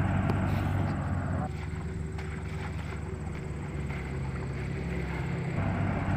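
Diesel tractor engine running steadily under load as it pulls a passenger-laden trolley, with a low, even engine note. The sound drops in level about a second and a half in and comes back up near the end.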